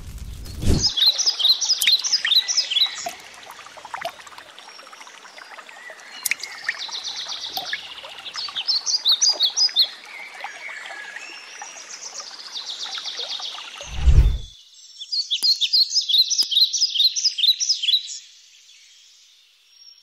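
Songbirds singing in quick runs of sharp, repeated high chirps, several bursts of a few seconds each. Under them runs a steady hiss of water that stops abruptly about fourteen seconds in, with a brief low thud at that moment.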